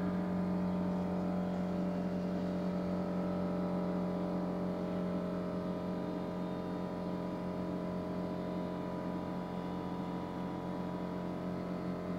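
Air compressor running, a steady mechanical hum with a strong low tone, growing slightly quieter toward the end.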